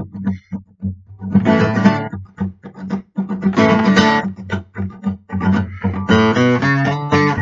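Acoustic guitar strummed by hand, chords coming in bunches about every two seconds with the low strings ringing between them.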